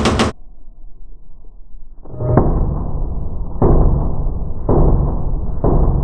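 9 mm Glock 19C pistol with a bolt-on compensator firing: the last of a rapid string of shots in the first moments. Then the string replays in slow motion as deep, drawn-out booms, four of them about a second apart, starting about two seconds in.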